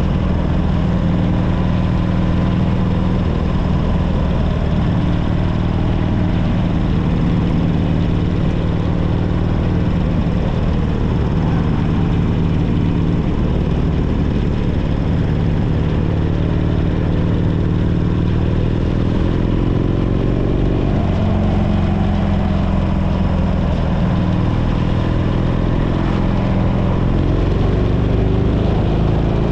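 Harley-Davidson Sportster 1200 Custom's air-cooled V-twin engine running under way at a steady cruise. The engine note rises about two-thirds of the way through and again near the end as the revs climb.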